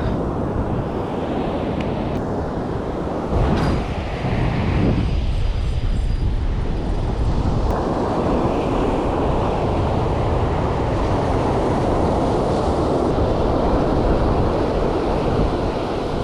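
Wind buffeting the microphone over the steady rush of surf on a sandy beach, a loud continuous noise.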